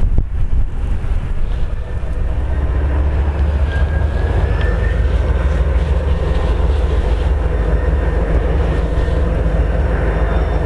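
Diesel-electric freight locomotive running, a steady low rumble.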